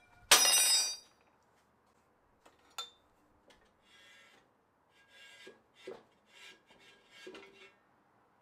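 A small metal part drops and rings with a bright metallic clatter for under a second, just after a nut comes off the arm of a 1938 Craftsman 24-inch scroll saw. A click follows, then a series of short metal-on-metal scrapes and rubs as the saw's arm is worked loose and slid off its rusty rod.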